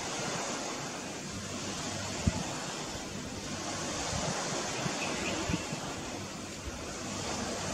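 Wind on the camera's microphone: a steady rushing hiss that swells and eases, with irregular low thumps and one sharper knock about two seconds in.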